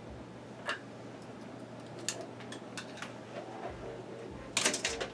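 Scattered small clicks and taps from parts being handled at a workbench, with a quicker cluster of sharper clicks near the end.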